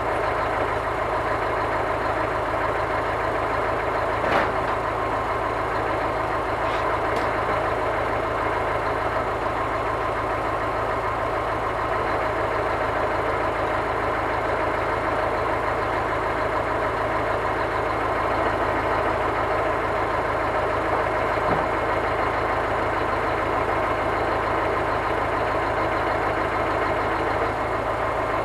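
Scania truck's diesel engine running steadily at idle to drive the hydraulic loader crane, with a few brief knocks.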